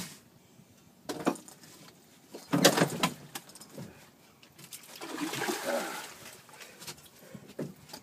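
Water splashing at the side of the boat as a hooked king salmon is brought to the landing net, in a few separate bursts: a short one about a second in, the loudest at about two and a half seconds, and a longer one past the middle, with a couple of sharp knocks near the end.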